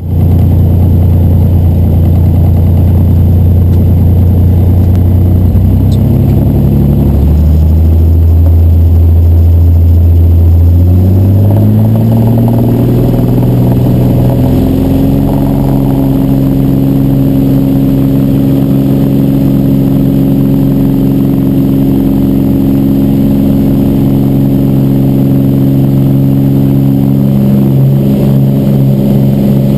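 Cessna 206's six-cylinder piston engine and propeller, heard inside the cockpit. It runs at a low, steady pitch at first, then rises in pitch over a few seconds about a third of the way in and holds steady at the higher speed: power being brought up for the takeoff run.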